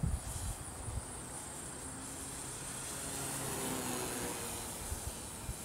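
Electric motor and 12-inch propeller of a radio-controlled Yak 54 aerobatic plane in flight, a faint buzzing whine that grows a little louder about halfway through as the plane passes closer. Low buffeting on the microphone comes and goes.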